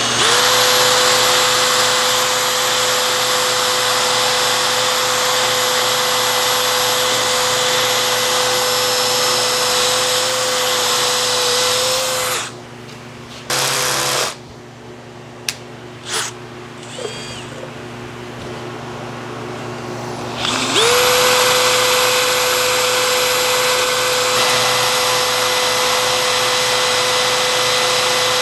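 Power drill motor spinning up and running steadily with a high whine while drilling pin holes in steel vise jaws. It stops about twelve seconds in, followed by a brief burst and a few clicks, then spins up again about twenty-one seconds in and runs on.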